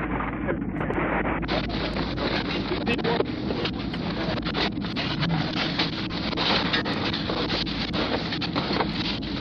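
Wind buffeting the microphone: a steady rushing noise broken by many short rustles and knocks.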